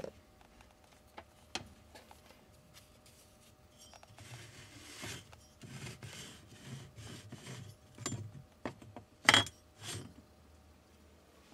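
Garbage disposal and its metal mounting ring being handled and fitted by hand: a few light clicks, then a stretch of rubbing and scraping. Near the end come two sharp knocks, the first the loudest.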